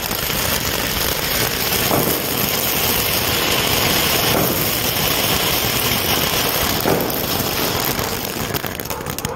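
Ajantha Fireworks 'Crackling Peacock' fan fountain spraying several jets of sparks: a steady, dense hissing rush with crackling, and a few sharper cracks standing out about two, four and seven seconds in.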